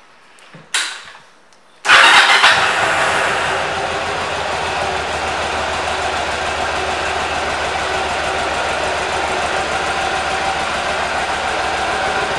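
A 2005 Yamaha V Star 1100 Classic's air-cooled V-twin is started about two seconds in, catching at once. It runs a little louder for a moment, then settles into a steady idle.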